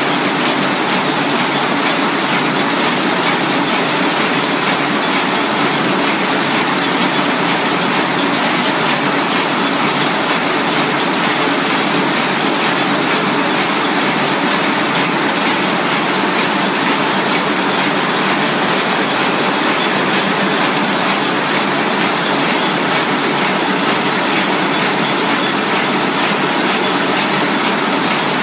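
Nanjiang HD-330 roll-fed square-bottom paper bag machine running steadily in production, a loud, even mechanical noise from the machine as it turns out kraft paper bags.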